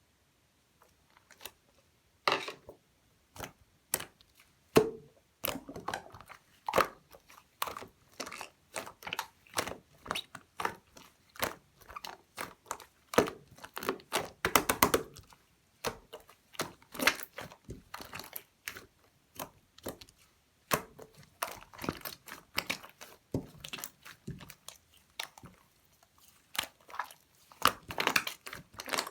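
Banana pudding slime being squished and pressed by hand, making a dense, irregular run of sticky clicks and small pops, several a second.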